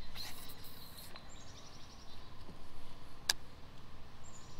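Baitcasting reel's spool whirring for about a second as a lure is cast, then a single sharp click of the reel a little over three seconds in as the retrieve begins. Birds chirp in short stepped phrases in the background.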